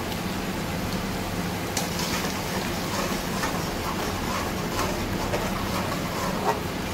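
Spiced masala sizzling and crackling in a hot pan as curd is stirred in, with the clicks of a spoon against the pan, from about two seconds in. A steady low hum runs underneath.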